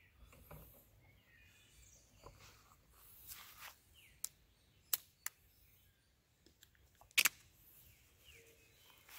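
Faint outdoor ambience with a few short bird chirps and several sharp clicks, the loudest a double click about seven seconds in.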